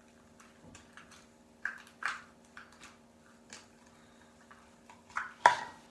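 Soft homemade slime squished and pulled by hand, giving a series of irregular short wet squelches and pops, the loudest near the end.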